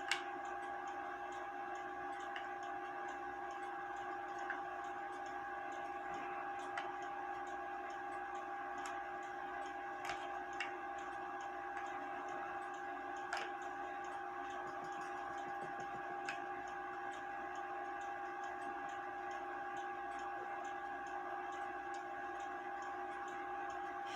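Scattered light clicks and taps from small metal parts and screws being handled while a wooden-plate clock movement is taken apart, over a steady high electrical hum.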